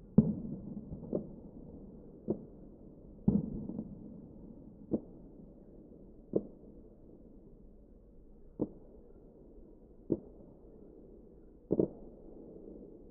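About ten dull, irregularly spaced thuds or bangs, each followed by a short low rumbling tail. The strongest come at the very start and near the end.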